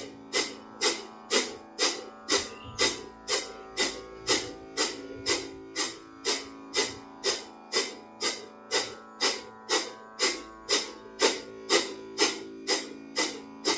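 Kapalabhati breathing: short, forceful exhales through the nose, about two a second in a steady rhythm, over soft guitar music.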